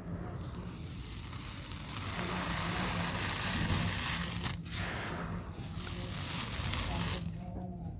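Gritty cement bowl shapes being crumbled, a continuous dry crackling and grinding with one sharp snap about halfway through. The crackling thins out and quietens a little after seven seconds.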